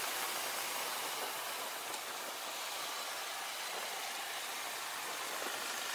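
Steady rushing wind and road noise from a KTM 690 SMC R motorcycle riding along at speed, an even hiss with little engine note.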